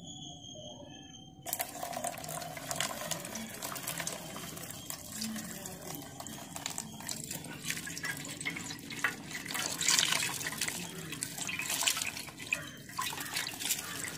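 Tap water running onto a green mango held in a hand and splashing into a stainless steel bowl as the mango is rinsed. The water starts about a second and a half in and cuts off suddenly near the end; a faint high steady tone is heard before it starts.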